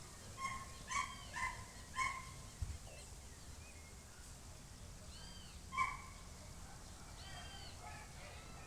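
A series of short animal calls, most likely a dog barking: four quick calls in the first two seconds, another a few seconds later, then fainter ones. There is a soft low thump between them.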